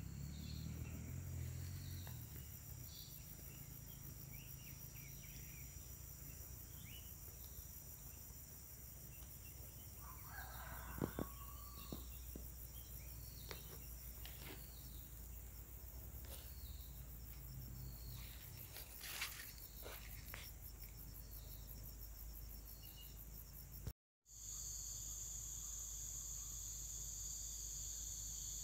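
Insects droning in a steady, high-pitched chorus, with scattered short chirping calls and one longer call about ten seconds in. After a brief break near the end, the insect chorus comes back louder.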